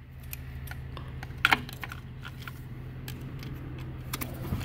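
Plastic wiring-harness clips and connectors being worked loose by hand: scattered small clicks and rattles, with a sharper click about a second and a half in and a few more near the end. A steady low hum runs underneath.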